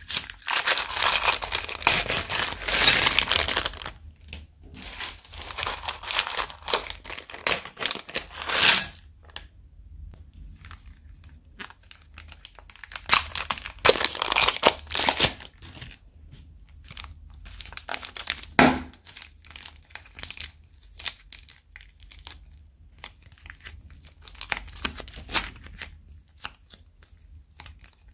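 Thin plastic bags crinkling and rustling as hands squeeze beads and then soft clay out of them. The crinkling is dense for the first several seconds, then turns into scattered crackles with a few more bursts.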